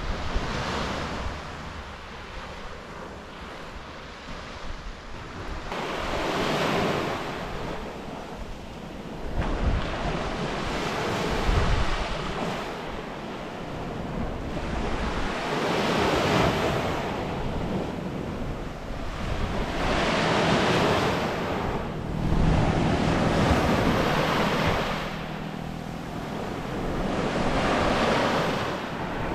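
Ocean waves breaking on a beach, the surf swelling and falling back every few seconds, with wind buffeting the microphone.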